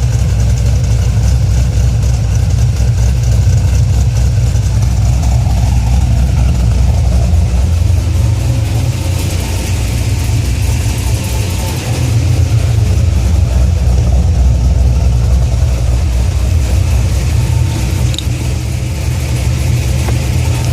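2004 Cadillac CTS-V's 5.7-litre LS6 V8 running with a deep, steady low rumble, dipping briefly about twelve seconds in.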